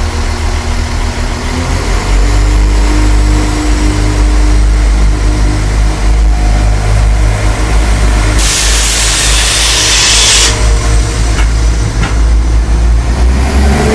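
CAF-built NIR Class 4000 diesel multiple unit moving slowly past at close range, its underfloor diesel engines running with a loud low drone that grows louder about two seconds in. A loud hiss breaks in about eight seconds in and lasts about two seconds.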